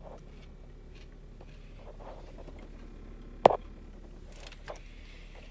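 Quiet, steady low hum inside a car cabin, with a few faint small ticks and one sharp click about three and a half seconds in.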